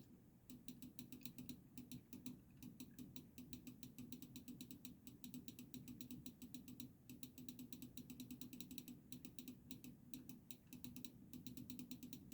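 Near silence: faint rapid clicking, several clicks a second with short pauses, over a low steady hum.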